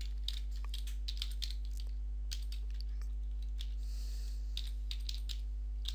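Computer keyboard typing: irregular single keystrokes with a short pause about midway. A steady low hum runs underneath.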